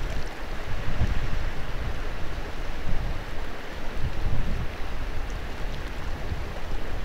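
Cold mountain wind buffeting the microphone in uneven gusts, over a steady rushing hiss of moving water.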